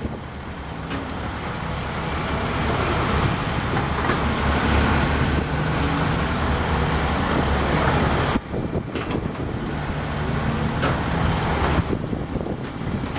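A Volvo EC210C hydraulic excavator's diesel engine running and working. The noise swells over the first few seconds, drops sharply for a moment just past eight seconds, then picks up again.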